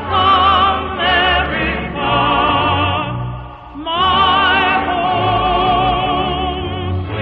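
A solo voice singing in an operatic style with wide vibrato on long held notes, over music. There is a short break about three and a half seconds in, then the voice slides up into the next phrase.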